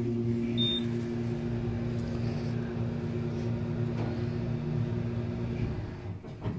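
A steady mechanical hum with two held tones over a low rumble, stopping about a second before the end, followed by a single knock.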